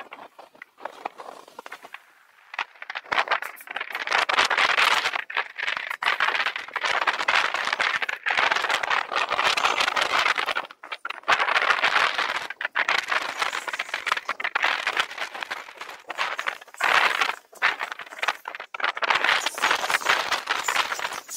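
Crackling, rattling rush of wind and road noise picked up by a bicycle-mounted camera while riding a folding bike. It is quieter for the first couple of seconds, then loud, with brief dips now and then.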